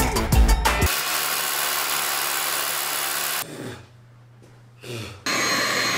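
Power drill boring a hole into concrete, running steadily for about two and a half seconds and then stopping. Near the end another steady motor starts up with a thin high whine.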